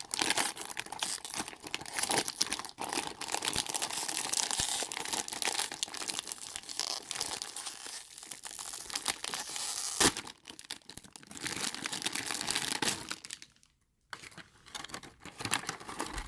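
Foil blind-bag packets being torn open and crinkled by hand, with the paper wrapper around a small figure rustling, dense crackling throughout. A sharp click about ten seconds in and a short pause near the end.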